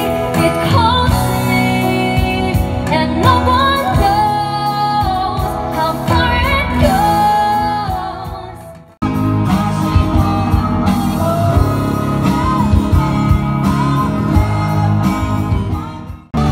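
Live pop band playing through a PA system: female vocals over electric guitar, keyboard, bass and drums. The music fades down about eight seconds in, then cuts straight back in on another passage of the song.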